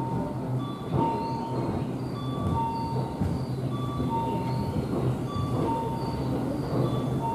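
Tobu electric commuter train running slowly over the station turnout, a steady low rumble with a few wheel knocks as it crosses the switch. A repeating electronic chime sounds behind it about every second and a half.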